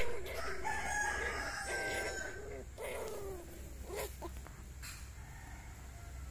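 A rooster crowing: one long call that fades out after about two and a half seconds, then a short squeal about four seconds in.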